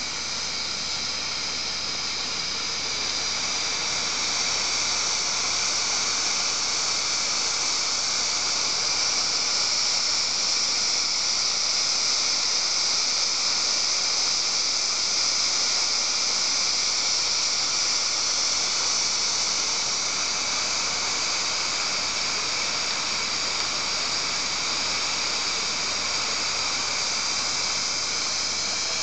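Fagor Splendid 10-quart pressure cooker venting steam through its lid valve: a steady, high hiss that grows a little louder about three seconds in and then holds.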